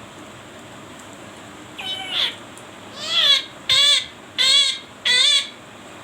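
A parrot calls five times in quick succession, starting about two seconds in. Each call is a short, wavering, nasal-sounding cry about half a second long, heard over a steady hiss.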